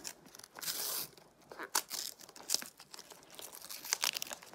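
A plastic surprise-toy packet torn open by hand, with one longer rip about half a second in, then scattered crinkling and crackling of the wrapper.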